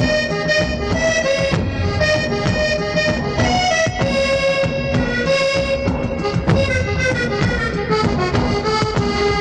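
Instrumental background music: a melody of held, reedy notes over a light percussion beat.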